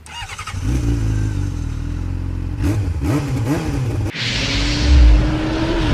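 Vehicle driving on a road: steady engine hum with road noise. About four seconds in the sound changes abruptly to a loud hiss of wind and road over a steady tone.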